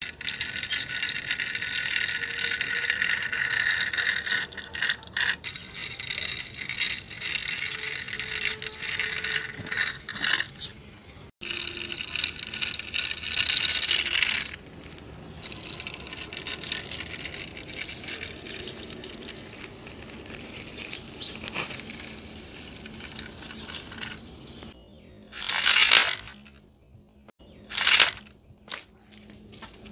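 Toy vehicles with plastic wheels pushed by hand over gritty concrete and loose soil, the wheels scraping and rattling on the grit. There are two short, louder rushes of scraping near the end.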